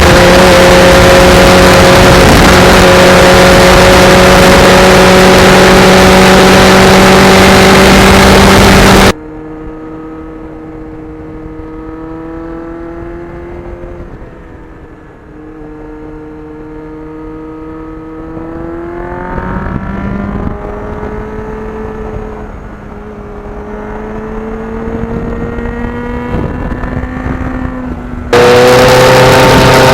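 Motorcycle riding at speed: loud wind rush over the microphone with a steady engine drone under it. About nine seconds in, this cuts abruptly to a quieter, clearer engine note that slowly rises and falls in pitch with the throttle. Near the end the loud wind rush cuts back in.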